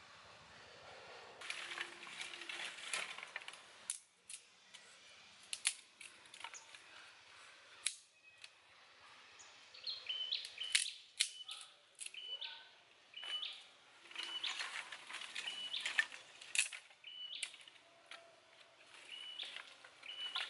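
Dry sticks snapping and cracking by hand, a string of sharp cracks. From about halfway on, a bird repeats a short chirp roughly once a second.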